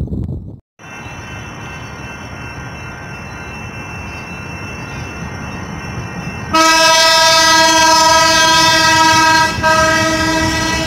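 A light-rail trolley running past at close range, its rumble growing louder as it comes in. About six seconds in, its horn sounds a loud, steady note. The horn breaks off briefly and sounds again near the end.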